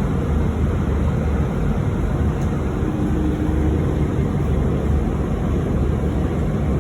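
Steady low rumble of a moving vehicle, heard from on board.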